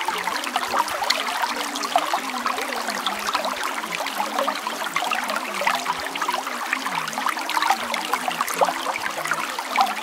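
Running water, a trickling, babbling stream, going on steadily without a break.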